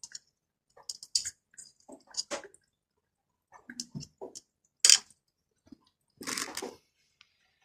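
Handling noises: scattered clicks and light knocks, with one sharp knock about five seconds in and a short scraping rustle a second later.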